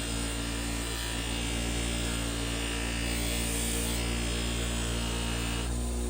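Bench grinder motor running with a steady hum while a forged steel knife blade is held against the spinning wheel, a grinding hiss over the hum. Near the end the hiss cuts off as the blade comes off the wheel, leaving the motor humming.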